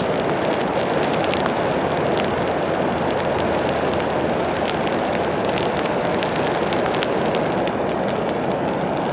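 Electric forge blower running wide open, forcing air up through a burning anthracite coal fire in a steady rush, with scattered small crackles.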